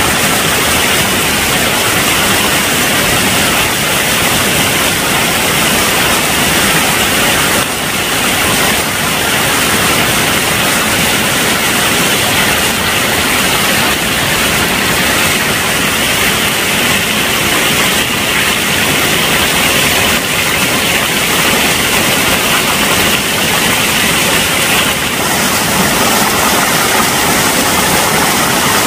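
Small mountain stream rushing and splashing over rocks close by, a loud, steady rush of water.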